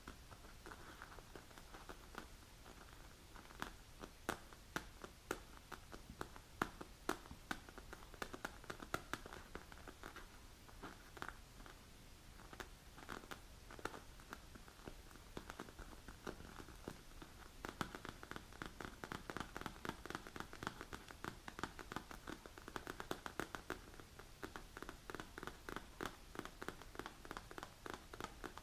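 Long natural fingernails tapping and scratching on a black leather-look padded manicure hand rest. It is a run of quick clicking taps, scattered at first, then faster and denser from about halfway through.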